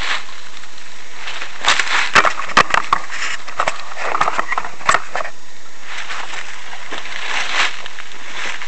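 Rustling and crackling in dry leaf litter and brush, with a few sharp clicks, over a steady hiss.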